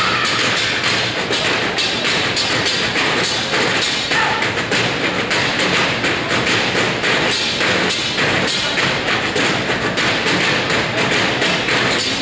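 Percussion ensemble drumming with sticks in a fast, dense rhythm of thumps and taps, a mix of drums and wood-block-like hits.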